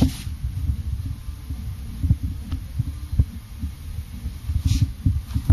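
Handling noise on a handheld camera's microphone: an irregular low rumble and thumping as the camera is moved about, with a brief hiss near the end.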